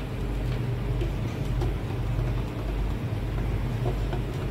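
A steady low mechanical hum, with a few faint light clicks.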